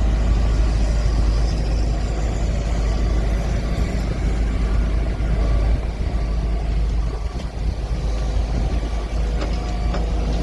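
JCB loader's diesel engine running steadily with a deep rumble, and a few sharp clanks near the end.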